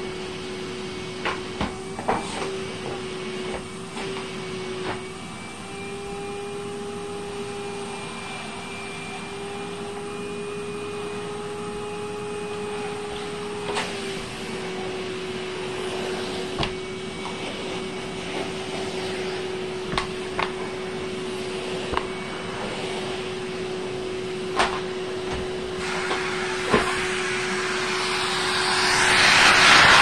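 Numatic Henry vacuum cleaner running with a steady motor whine whose pitch shifts slightly as the nozzle is worked over the floor and rug, with occasional clicks and knocks of the wand. Near the end a louder rushing suction noise rises as the hose comes close.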